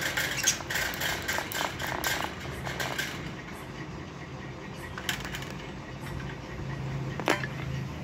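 Pet budgies chirping and chattering in a quick run for the first three seconds, then a few soft clicks and one short sharp sound about seven seconds in, over a steady low hum.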